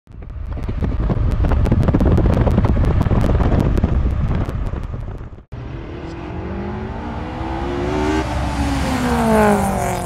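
A car being driven fast, with a loud mix of engine and rushing air, cut off abruptly about five and a half seconds in. Then a compact SUV's engine note climbs as it accelerates toward the microphone and drops in pitch as it passes.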